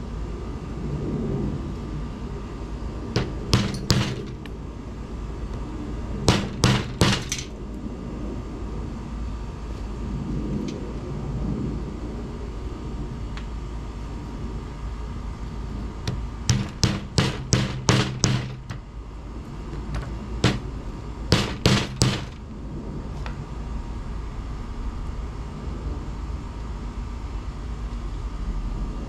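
A hammer striking corroded, rust-encrusted lumps on a table to break them open. The blows come in quick bursts of three to seven, with pauses between, over a steady low hum.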